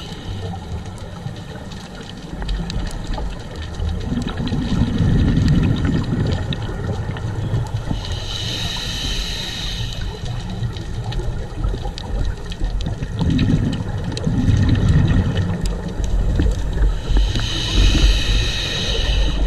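Scuba diver breathing, heard through an underwater camera: a hiss from the regulator on each in-breath, then a low rumble of exhaled bubbles, in a slow cycle about every nine seconds. Faint crackling clicks run throughout.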